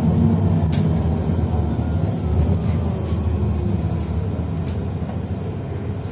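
Steady low rumble of a moving vehicle heard from inside the cabin, with a few short clicks and rattles and a faint falling whine around the middle.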